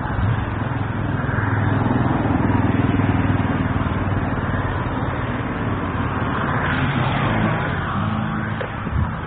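Street traffic: steady motor-vehicle engine noise, with a swell about seven seconds in as a vehicle passes.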